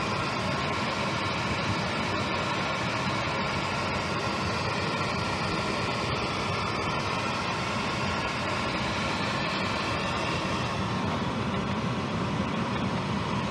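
HVAC equipment running: a steady whir of fan and motor noise with a faint steady hum.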